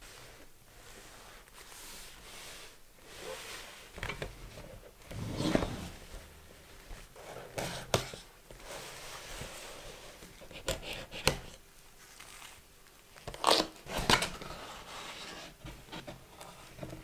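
Gloved hands handling a cardboard product box: scraping and rustling of the card, with a blade cutting along the box seam and several sharp clicks and taps as the card flexes and the flap is opened.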